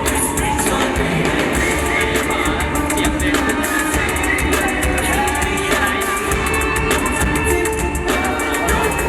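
Loud band music with drums, guitar and a singing voice, playing continuously.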